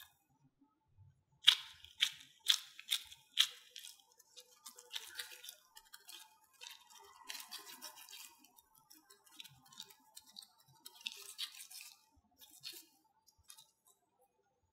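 Oiled disposable gloves patting and rubbing a mashed potato patty between the palms: five sharp pats about two a second, then a longer stretch of softer, irregular rubbing and slapping.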